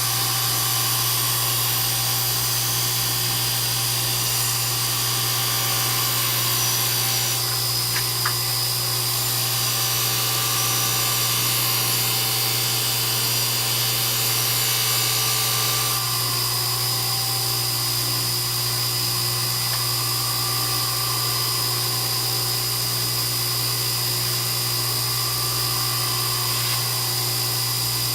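Electric grinder running steadily while a kitchen knife blade is sharpened on it: a constant motor hum under a high grinding hiss and whine that changes about a third of the way in and again around halfway, as the blade is moved between passes.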